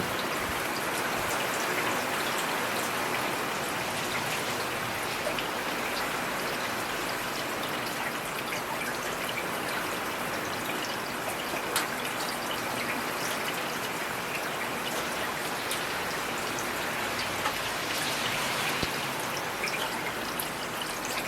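Steady rainfall, an even hiss of rain with scattered single drops ticking through it and one sharper drip about halfway through.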